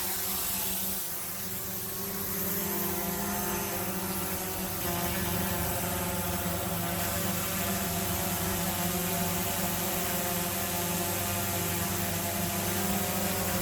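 Autel Evo quadcopter drone hovering, its propellers giving a steady buzzing hum with several steady tones.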